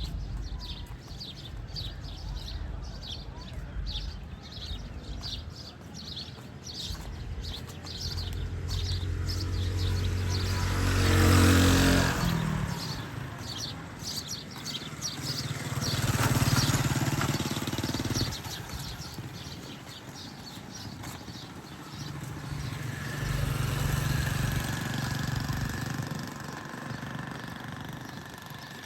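Motor vehicles passing one after another on a busy street. The loudest passes about eleven seconds in, its engine pitch dropping as it goes by, and two more follow later. Through the first several seconds there is a quick, regular clicking.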